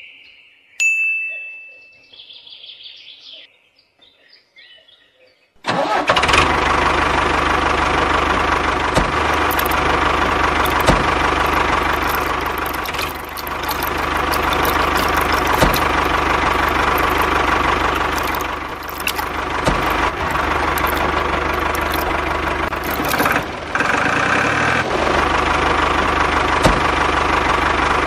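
Tractor engine running steadily with a low, even chug; it starts suddenly about five and a half seconds in, after a few quieter seconds with scattered chirps.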